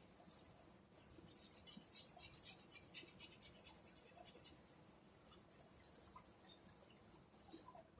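Rapid back-and-forth scrubbing strokes, about five a second, as a part from a disassembled generator engine is cleaned of dirt. The strokes are steady for the first half, then come in scattered short runs.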